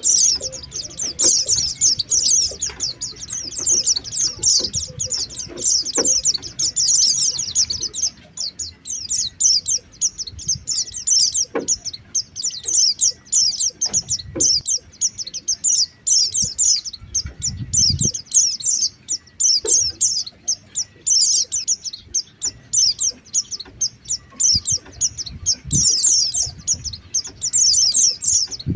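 Pleci (white-eye) chirping: rapid, high-pitched twittering in dense bursts, a lure call for drawing white-eyes in. A few faint low thumps sound under it.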